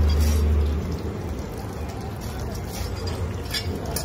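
Tap water running and splashing into a plastic bowl, over a low steady hum that is louder for the first second. A few sharp knocks come near the end.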